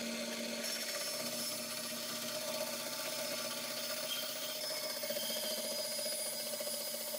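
Band saw running steadily with a hum, its blade cutting lengthwise into the end of a wooden hammer handle.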